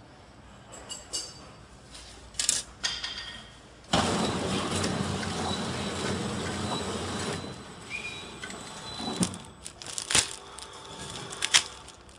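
Clear plastic wrapping film crackling as it is threaded by hand through a flow wrap packaging machine, then the machine running for about three seconds as it feeds film through, followed by scattered sharp clicks and knocks.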